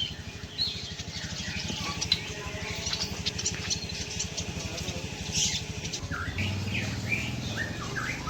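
Caged birds in a bird-seller's kiosk chirping and calling, many short high chirps and whistled glides overlapping, with more of them near the end. A steady low mechanical hum runs underneath and gets stronger about six seconds in.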